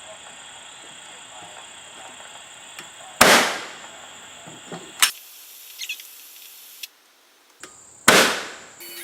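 Two loud, sharp bangs about five seconds apart, each dying away over about a second, with a smaller knock between them.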